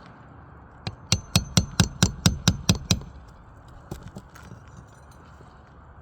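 Hand hammer striking a roofing nail during a shingle repair: about ten quick, evenly paced blows over two seconds with a faint metallic ring, then a few light taps.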